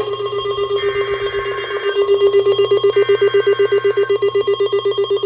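Loud electronic alert tone pulsing rapidly, like a ringing bell. Over it, twice, the Emergency Alert System's SAME header data bursts: about a second each of harsh two-pitch digital chirping, the coded start of a severe thunderstorm warning.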